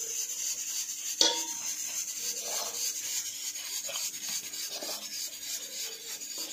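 A plastic spoon stirring dry semolina and flour in a steel bowl, a steady scratchy rubbing against the metal, with one sharp tap of the spoon about a second in.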